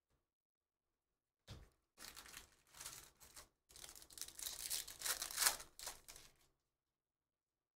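Foil wrapper of a Topps Stadium Club baseball card pack being torn open and crinkled by hand: a run of crackly tearing and rustling that starts about a second and a half in, pauses briefly midway, and stops a little over a second before the end.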